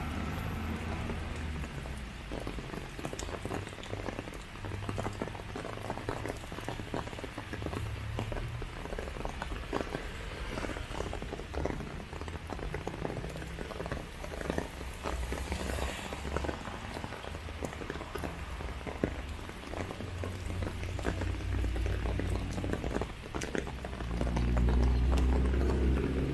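Rain falling, with many small drops hitting wet ground and leaves in a dense, irregular clatter. Under it runs a low rumble that swells louder near the end.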